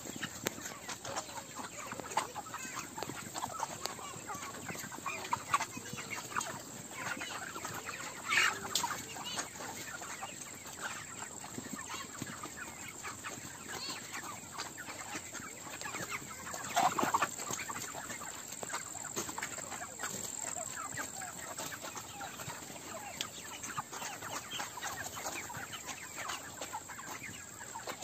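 A large flock of chickens clucking and chirping together in a continuous chatter, with a few louder calls standing out about eight seconds in and again around seventeen seconds.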